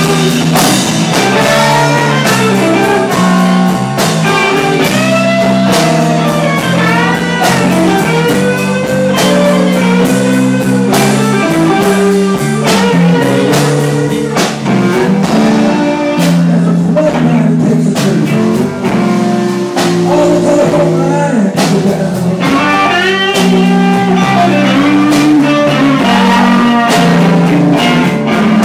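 A live blues band playing a slow blues, with an electric lead guitar bending notes over a steady bass line and drums.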